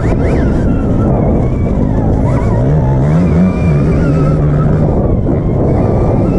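Stark Varg electric motocross bike under way on a dirt track: its motor whine climbs in steps about two and a half seconds in, then holds steady for a moment, over a heavy rush of wind and rumble from the ride.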